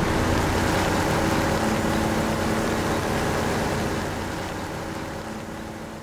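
Engines of heavy lifting machinery running steadily with a low hum. The sound fades out over the last couple of seconds.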